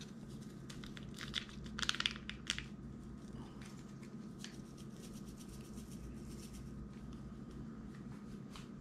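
A small sazón seasoning packet being torn open and crinkled: a burst of crackling rustles from about one and a half to two and a half seconds in, then only a few faint ticks over a low steady hum.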